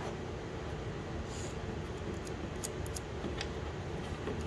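A few faint, light metallic clicks of a thin wire cable and its hook clip being wrapped and hooked on itself, over a steady low background hum.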